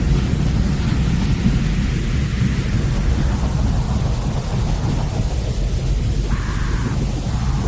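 Steady, deep rushing noise track used as white noise to calm a crying baby, heavy in the low end like the whoosh heard in the womb.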